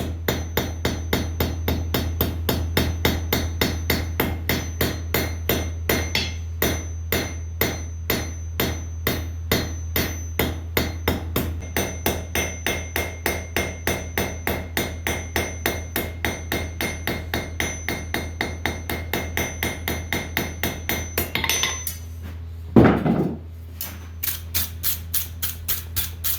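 Blacksmith's hammer striking steel on an anvil, about three blows a second, beating the corners off a taper to round it. The blows pause briefly near the end around one short, louder noise, then start again, over a steady low hum.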